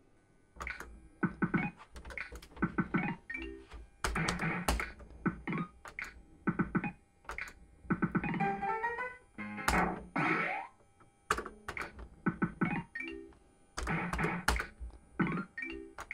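Bully for You fruit machine playing short synthesized jingles with sharp clicks, the same sequence repeating every few seconds as it runs through its bonus throws.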